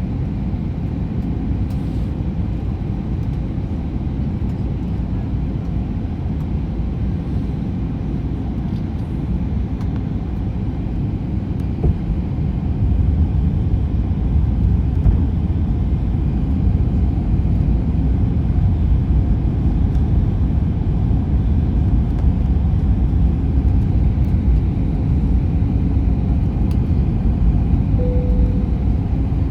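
Airliner cabin noise heard from a window seat: the steady roar of the jet engines and rushing air, which grows louder and deeper about thirteen seconds in. A short faint tone sounds near the end.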